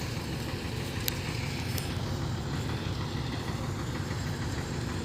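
Heavy engine of earthmoving machinery running steadily with a low rumble. Two short sharp clicks come about a second in and just under two seconds in.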